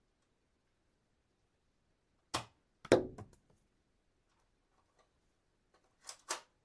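Darts striking glass: a sharp hit a little over two seconds in, a louder one half a second later followed by a few small ticks, then two quick hits near the end.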